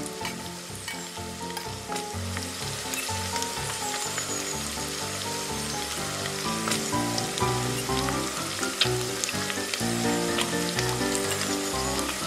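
Sizzling from a miniature metal frying pan as vegetables are stir-fried, with a spoon clicking against the pan now and then, over background music.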